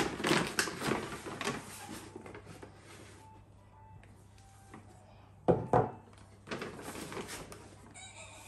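Packaging and a paper delivery bag rustling as groceries are unpacked, with one sharp knock about five and a half seconds in as a glass jar is set down on a wooden table.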